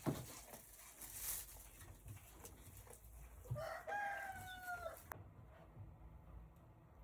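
A rooster crows once, a single call of about a second and a half with a slight fall in pitch, beginning about three and a half seconds in. Before it there is faint rustling with light knocks.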